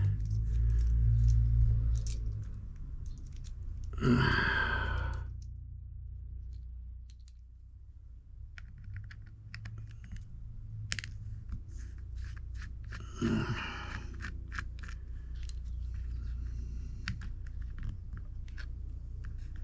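Small scattered clicks and taps of a precision screwdriver working tiny screws out of a phone's internal plate, over a low steady hum, with a couple of short muttered sounds.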